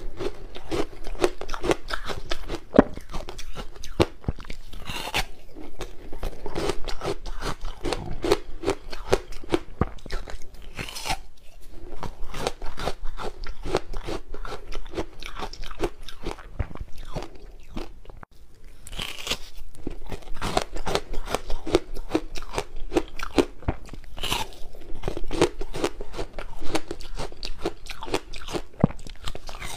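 Frozen passion fruit ice being bitten and chewed close to the microphones: a dense, continuous crackle of crunching, with several louder bites spread through it.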